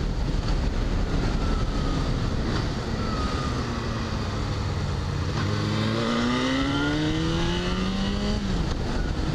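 Motorcycle engine running while riding, with wind rushing over the microphone. About five and a half seconds in, the engine accelerates and its pitch climbs for about three seconds, then drops as the throttle eases or the bike shifts gear near the end.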